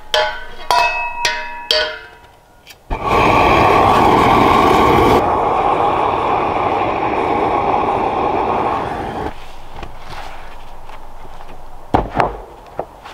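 A few ringing metallic clinks as a small propane tank and torch wand are handled. About three seconds in, a propane torch lights with a sudden loud, steady rushing hiss as it chars wooden boards; the sound drops to a lower level after about six seconds. A couple of sharp knocks come near the end.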